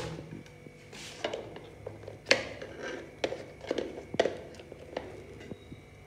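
A spoon knocking and scraping against a ghee jar and a metal kadai as ghee is scooped out: a string of short clicks and knocks, the loudest about two seconds in.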